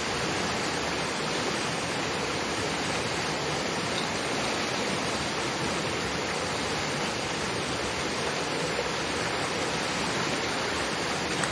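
Mountain river rushing with a strong current: a steady, even rush of water.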